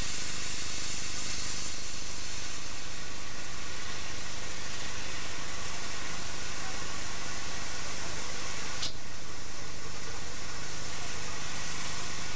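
Steady hiss of steam escaping from a standing narrow-gauge steam locomotive, built in Manchester in 1958.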